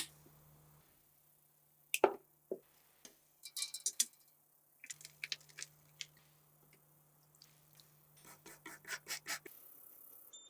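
Scattered clicks and knocks of small machine-gun parts being handled and fitted, the loudest a single knock about 2 s in, with runs of quick clicks about 4 s in and near the end. A steady low hum underneath drops out about 1 s in and comes back about 5 s in.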